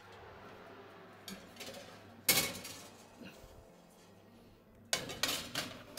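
Oven door pulled open and a metal baking tray slid onto the oven's wire rack, with one sharp ringing metal clatter a little over two seconds in. A run of clanks near the end, the last the loudest, as the tray settles and the door swings shut.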